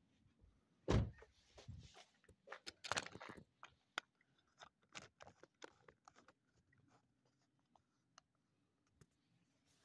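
A car door shuts with a heavy thump about a second in, followed by a string of light clicks and rustles that die away over the next few seconds.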